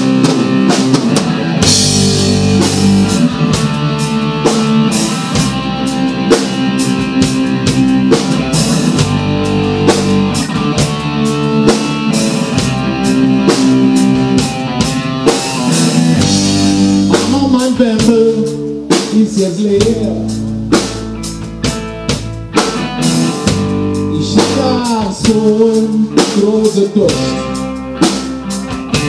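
Live rock band playing: electric guitar and bass over a drum kit keeping a steady beat. The drums and bass come in about two seconds in.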